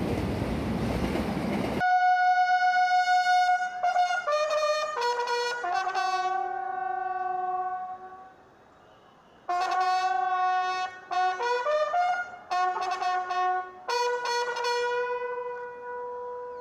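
A freight train runs past for about the first two seconds, as a steady rumbling noise that cuts off abruptly. A solo instrumental melody follows: long held notes, one at a time, stepping up and down in pitch. It pauses for over a second near the middle, then resumes.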